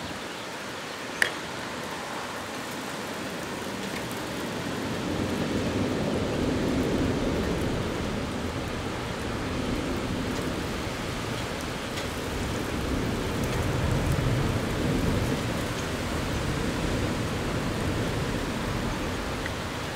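Thunderstorm: a steady hiss of rain with long, low rolls of thunder that swell up about a quarter of the way in and again past the middle.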